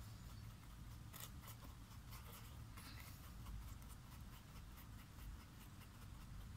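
Paintbrush stirring coffee powder and water in a plastic palette well to dissolve it into paint: faint, irregular scratching of the bristles against the plastic, with small ticks.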